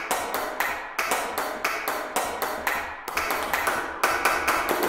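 Sampled hand claps from the 99Sounds Clap Machine plugin, played as a fast repeating rhythm of about five claps a second, with the plugin's reverb set halfway so each clap rings on briefly.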